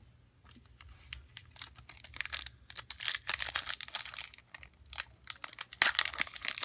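Foil trading-card pack (Panini Absolute Football) crinkling and tearing as it is ripped open by hand: faint at first, a dense crackle from about a second and a half in, loudest near the end.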